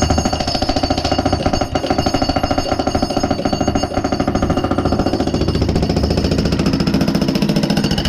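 Electric jackhammer hammering into a concrete slab: a rapid, steady run of blows with a ringing tone over them.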